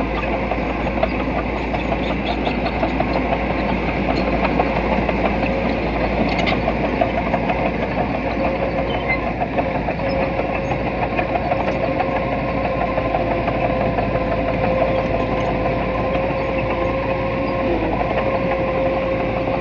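Diesel engine of small earthmoving machinery running steadily with a rattling clatter, and a steady whine that becomes clearer about halfway through.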